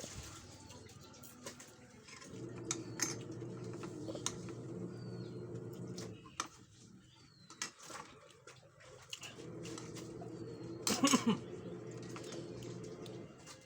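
Spoon and utensil clicks against a plate while eating, over birds cooing in the background in stretches of a few seconds, with a few short high chirps. About eleven seconds in there is a louder burst with a falling pitch.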